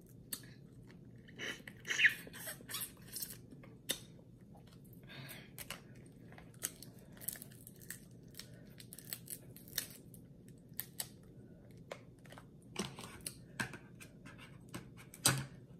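Crab leg shells cracked and snapped apart by hand, with chewing and sucking of the meat: a scattered string of short, sharp cracks and clicks, a louder snap about two seconds in and another near the end.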